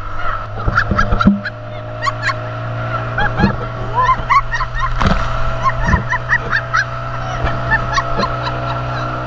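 Towing speedboat's outboard engine running steadily at speed, with rushing water and sharp knocks as the inflatable bumper tube bounces over the wake.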